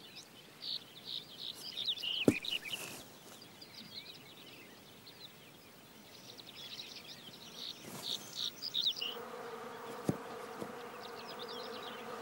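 High, quick chirping calls in two bursts, with a sharp click about two seconds in; then, some nine seconds in, a steady buzzing drone of a swarm of blackflies close around the microphone takes over.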